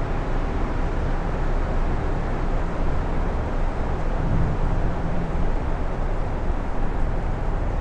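Strong wind blowing: a steady rushing noise with a heavy low rumble.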